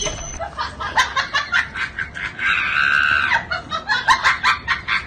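A person laughing in a run of short quick bursts, with a drawn-out high-pitched shriek of laughter a little past halfway.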